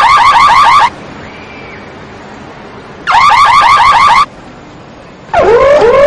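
Car alarm siren going off in loud blasts of rapid warbling chirps. There is a blast of about a second at the start and another about three seconds in, then a lower-pitched warble starts near the end.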